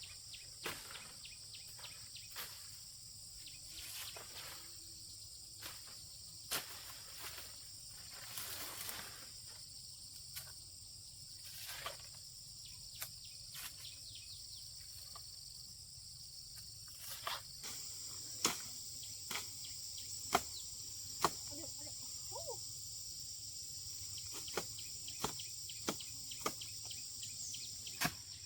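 A steady, high-pitched insect chorus, with irregular sharp knocks and clicks that come louder and more often in the second half.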